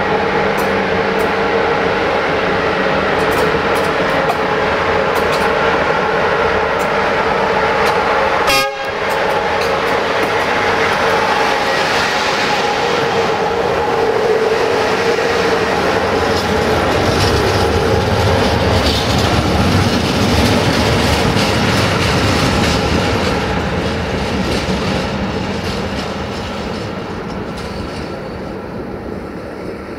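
Class 43 (040-EC) electric locomotive and its loaded hopper wagons passing at close range. A steady humming tone rides over the rush of the train, with one sharp click about nine seconds in. Later the low rumble and clatter of the wagon wheels takes over and fades near the end as the train moves away.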